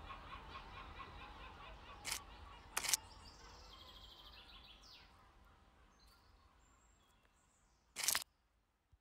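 Faint outdoor night ambience from a field recording: a low steady hum with quick repeated chirping, about four a second, fading out. It is broken by three short hissing bursts, about two, three and eight seconds in, the last the loudest.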